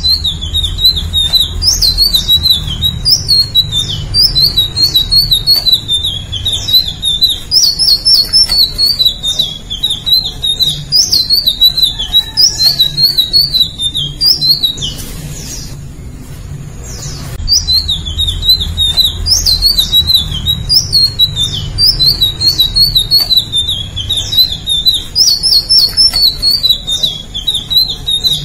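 A caged flycatcher, Eumyias (Sikatan Ninon), singing a long, rapid twittering warble of quick rising and falling notes in phrases of a few seconds, with a pause of a few seconds near the middle. A low rumble runs underneath.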